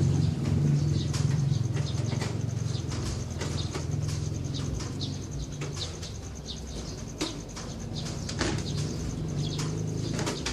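Birds chirping with many short repeated calls, over a low steady cooing-like drone, with a couple of sharp clicks about seven and eight and a half seconds in.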